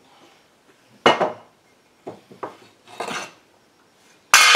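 A heated chainsaw crankcase half knocked down onto a wooden bench several times, sharp knocks, then a loud ringing metal clatter near the end as the steel main bearing drops free of the case without a hammer.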